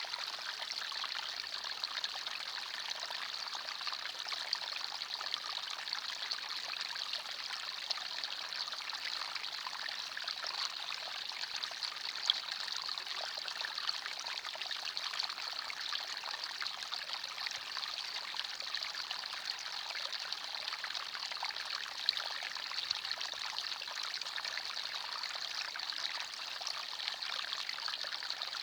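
Small forest stream running steadily over stones, a continuous trickling and babbling of water.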